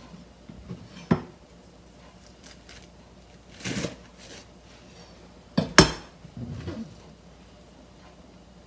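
Kitchen knife cutting the root end off broccoli sprouts on a plastic cutting board. There is a knock about a second in, a short scraping cut near four seconds, and the loudest knock just before six seconds, then a few faint rustles.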